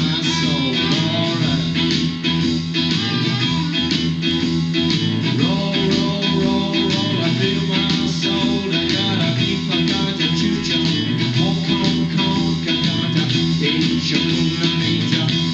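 Guitar-led music playing steadily, with bass underneath.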